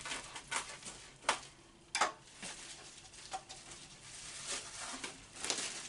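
Plastic packaging wrap crinkling and rustling as it is pulled off a boxed electronic unit, with several sharp crackles, the loudest about two seconds in.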